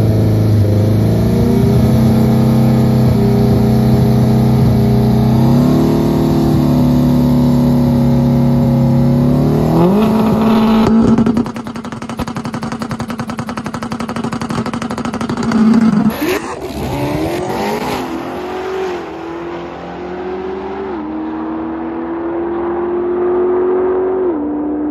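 Honda Del Sol drag car's engine held at raised revs on the starting line, the revs stepping up for about ten seconds, then rising sharply as it launches at about eleven seconds. The engine note then gets quieter as the car runs away down the strip, with pitch drops at gear changes near the end, and a brief sharp noise about sixteen seconds in.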